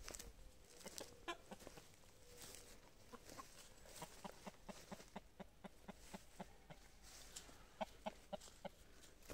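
Brahma chickens clucking faintly: a few short clucks near the start, then a steady run of short low clucks, about three a second, from about three seconds in.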